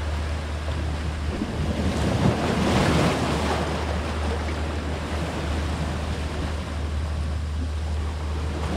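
Sea surf washing against shoreline rocks, one wave surging louder about two to three seconds in, over a steady low rumble of wind on the microphone.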